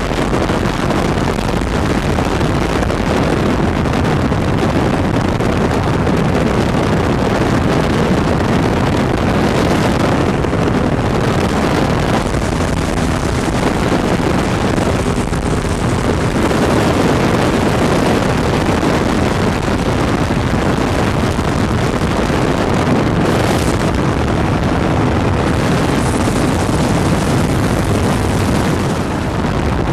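Ultralight aircraft in level flight: the steady drone of its engine and propeller mixed with wind noise on the microphone.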